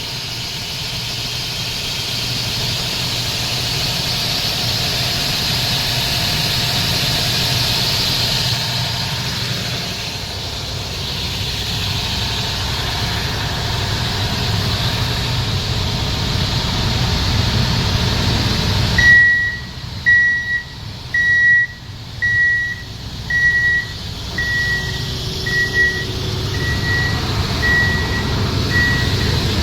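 Cummins 750 kVA diesel generator set running steadily. About two-thirds of the way in, the sound changes abruptly and a high beep starts, repeating about once a second.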